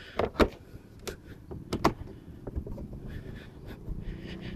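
Plastic engine cover of a Mercedes M272 V6 being pressed down by hand onto its mounts, giving about five sharp snaps and knocks in the first two seconds, followed by lower, steadier handling noise.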